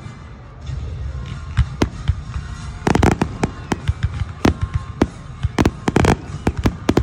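Aerial fireworks bursting in rapid succession: sharp bangs with crackle, thickening into dense volleys about three seconds in and again about six seconds in.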